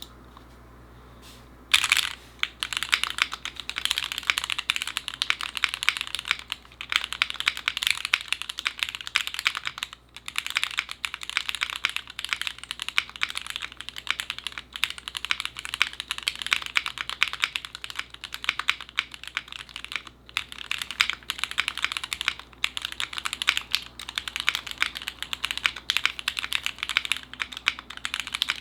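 Continuous fast typing on a Tofu Jr 65% mechanical keyboard with stock Gateron KS-3 Milky Yellow linear switches in a gasket-mounted, foam-filled build with a PC plate and PBT keycaps: a dense, muted clacking of keystrokes. It starts about two seconds in and pauses briefly twice.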